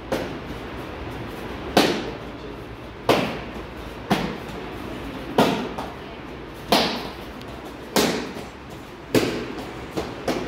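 Sharp slaps of bare-foot kicks striking a hand-held kicking paddle, about one every second and a quarter, each with a brief echo. Near the end two land close together.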